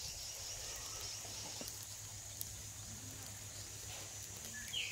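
Steady high-pitched insect drone over a low hum, with a short falling bird chirp near the end.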